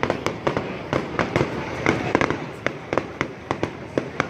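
Fireworks going off: a dense, irregular run of sharp bangs and crackles, several a second, over a continuous rumble of more distant explosions.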